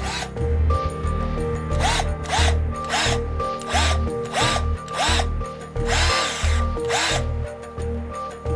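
Parkside PAAP 12 A1 cordless 12 V polisher motor spinning up and winding down again and again on short trigger pulls, with a rising and falling whine each time. There are about nine quick bursts roughly half a second apart, and a longer one near the end.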